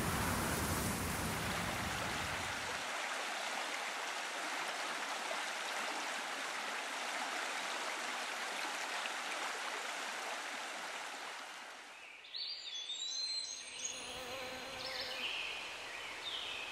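Steady rushing outdoor noise, with no distinct events, that thins and fades over about twelve seconds; after that, birds chirp with short high calls.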